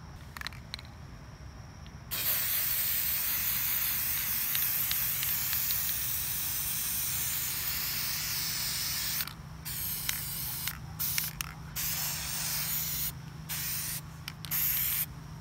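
Aerosol can of gold spray paint spraying: one long continuous hiss of about seven seconds, then a string of shorter bursts.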